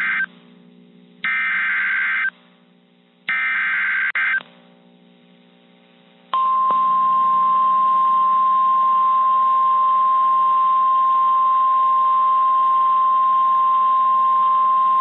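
Emergency alert SAME header: the end of the first digital data burst, then two more bursts about a second long each. About six seconds in comes the steady single-pitch 1050 Hz NOAA Weather Radio warning alarm tone, held for about nine seconds, announcing a severe thunderstorm warning.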